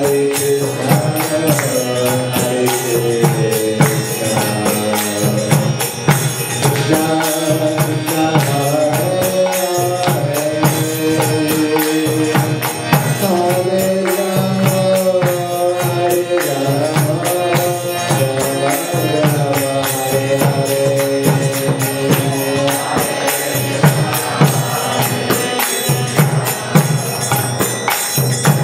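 Bina harmonium playing a devotional kirtan melody in held, stepping chords, with steady percussion hits keeping the beat.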